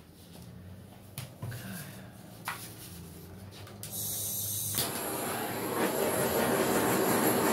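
A handheld torch hisses briefly and then catches about five seconds in, settling into a loud, steady rushing roar of flame. This is the torch pass over a freshly poured acrylic painting.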